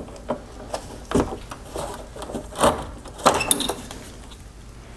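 Plastic clicks and scraping of a xenon headlight bulb's twist-lock retainer being turned and the bulb worked out of the headlight housing, with the sharpest clicks in the middle and quieting near the end.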